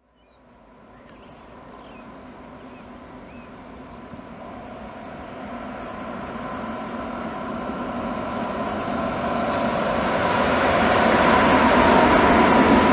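ÖBB electric locomotives (two Rh 1144s and a Rh 1116) approaching and passing close. The wheels rumble on the rails under a steady electric hum, growing steadily louder and loudest near the end as the leading locomotive goes by.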